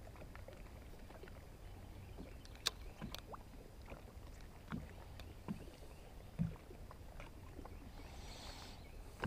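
Faint water lapping against the hull of a small fishing boat over a low rumble, with a few light clicks and soft knocks from handling the spinning rod and reel.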